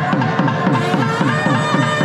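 Traditional Tamil temple festival music for kavadi dancing: a drum beats about four strokes a second, each stroke sliding down in pitch, under a steady drone and a reedy wind-instrument melody.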